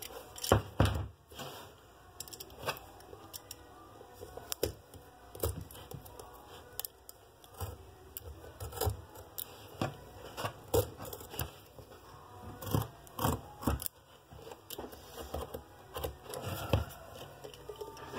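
Handling and tool noise on a leather work boot being worked to get its sole off: irregular clicks, knocks and scraping, the loudest knocks about half a second to a second in.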